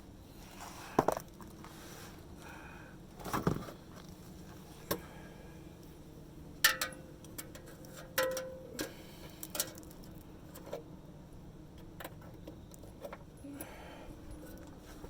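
Irregular metal clinks, taps and knocks of hand tools and exhaust parts being handled during an exhaust repair, about a dozen scattered through, one clink ringing briefly.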